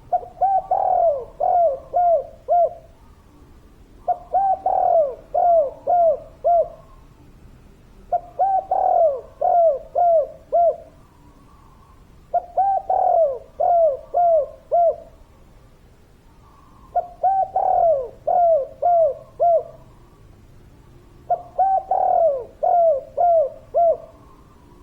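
Spotted dove cooing in a repeated song: six phrases about four seconds apart, each a longer swelling coo followed by a quick run of three or four shorter coos that dip in pitch.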